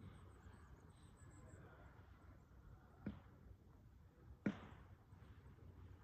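Quiet forest ambience, near silence, with a few faint high chirps early on and two sharp clicks, about three and four and a half seconds in, the second louder.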